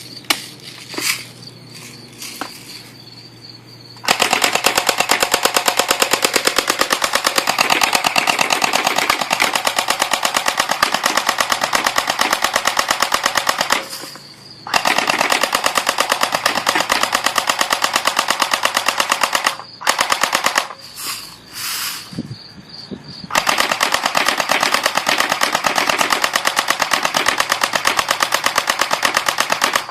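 Battery-powered P90 BB gun firing on full auto in long rapid bursts. A burst of about ten seconds starts a few seconds in, followed by one of about five seconds, a few short bursts, and then another long burst that runs on to the end.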